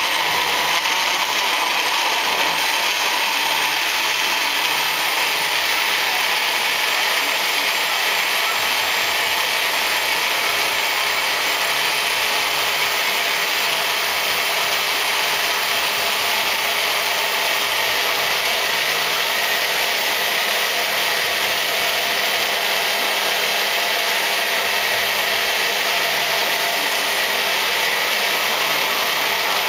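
Magic Bullet blender running steadily, blending a shake of water and leafy greens.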